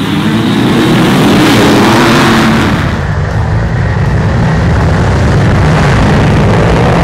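A pack of off-road dirt bikes launching together off a race start, many engines revving hard and rising in pitch at once, then running loud at full throttle as they go past.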